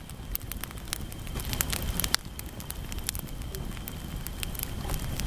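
Wood campfire of large logs burning, with many sharp crackles and pops over a steady rushing noise.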